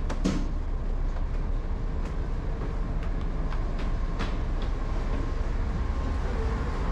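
Passenger ferry's engine running with a steady low rumble and a faint steady hum, broken by a couple of sharp clicks, one right at the start and one about four seconds in.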